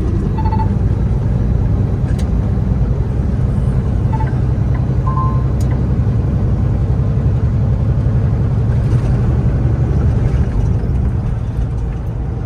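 Steady low rumble of a Kenworth T680 semi truck's engine and tyres heard inside the cab while driving on the freeway. A few short electronic beeps sound just after the start and twice around four to five seconds in.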